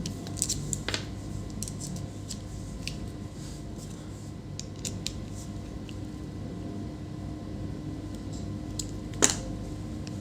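Scattered light clicks and ticks of a screwdriver and small laptop parts being handled, with one sharper click about nine seconds in, over a steady low hum.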